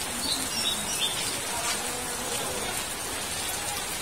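Steady rain falling on the ground, an even hiss, with a few faint high chirps in the first second.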